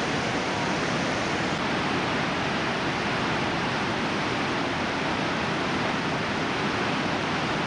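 A large waterfall pouring into churning whitewater below: a steady, even rush of falling water.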